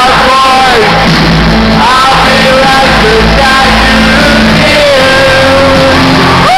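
Rock band playing live and loud in an arena, a sung melody gliding over steady held bass notes.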